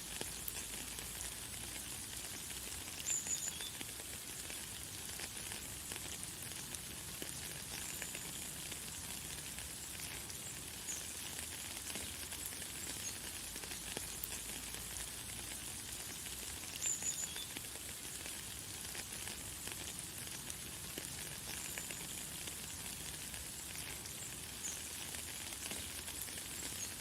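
Light, fine rain falling as a steady high hiss, with short high bird chirps now and then, the most prominent about three seconds in and about seventeen seconds in.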